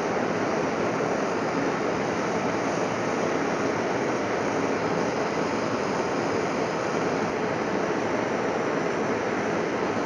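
Handheld gas torch burning with a steady hiss, its flame heating the blades of pruning shears red hot to sterilize them.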